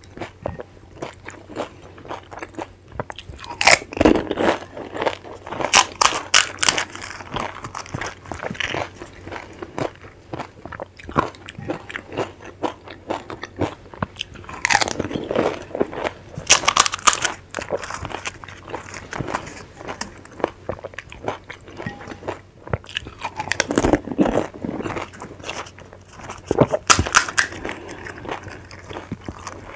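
Crisp panipuri shells being cracked and crunched whole in the mouth, followed by wet chewing of the filled puris. Loud clusters of crunching come roughly every ten seconds, with softer squishy chewing in between.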